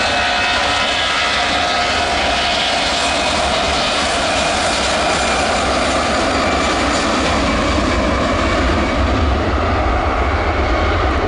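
Airbus A320-200 jet engines at high thrust on the take-off roll, a steady loud roar. A high whine is plain at first and fades after a few seconds, and a deep rumble builds toward the end as the jet passes and heads away.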